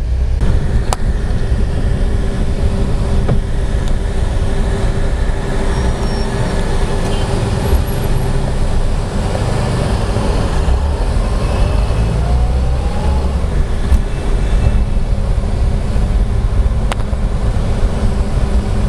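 Steady low rumble of a car's engine and tyres heard from inside the moving car, with city traffic noise around it.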